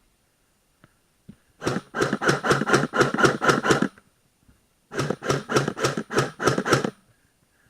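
Airsoft gun firing two rapid bursts of shots, about six or seven a second, the second burst starting about a second after the first ends.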